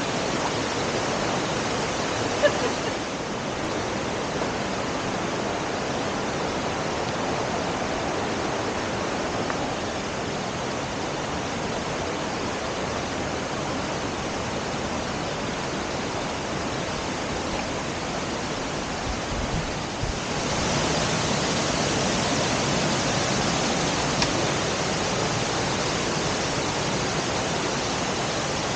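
Waterfall's rushing water, a steady even roar that grows louder and brighter about twenty seconds in.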